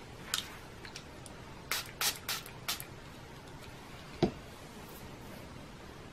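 TONYMOLY setting mist spray bottle pumped four times in quick succession, short hissing sprays of mist about two seconds in. A single sharp thump follows about four seconds in.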